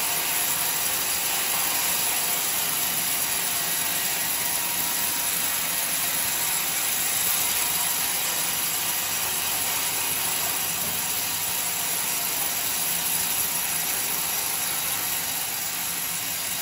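Homemade band sawmill's steel blade ripping lengthwise through a long coconut-wood beam: a steady, even, high hissing noise of the blade in the cut.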